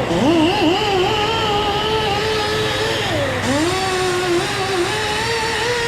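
A small high-speed motor whining with a wavering pitch. The pitch sags about three seconds in, then climbs back, as if briefly loaded.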